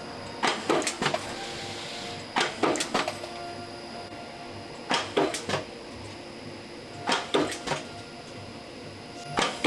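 Small blanking press punching fountain-pen nib blanks out of a thin metal strip: groups of three or four sharp metallic clacks about every two to two and a half seconds, over a steady faint hum.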